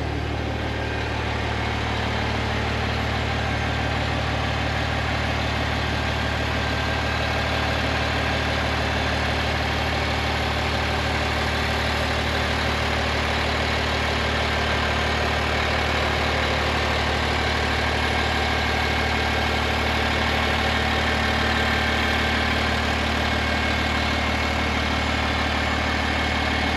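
Fire engine's diesel engine idling steadily while the hydraulic cab-tilt pump runs with a faint whine, raising the cab in one continuous motion.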